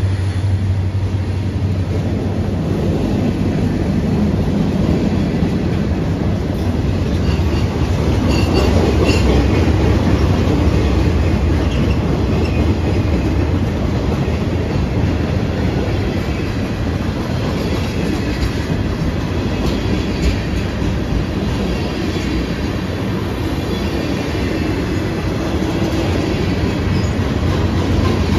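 Freight train cars (boxcars, tank cars, covered hoppers) rolling past close by: a steady rumble and clatter of steel wheels on rail. A few faint high wheel squeals come in about eight to ten seconds in.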